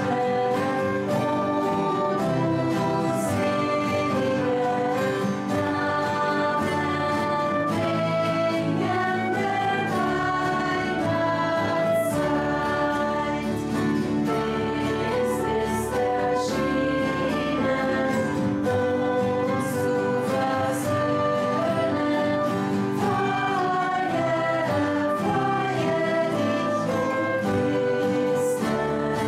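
Girls' voices singing a Christmas song together, accompanied by a flute and other instruments.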